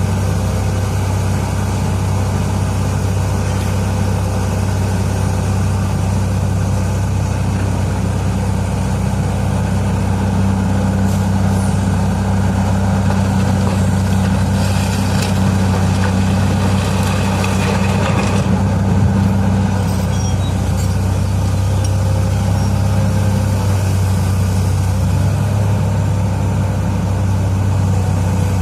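Heavy diesel engine of large mining machinery running steadily with a deep, even drone. A stretch of higher clatter comes about halfway through.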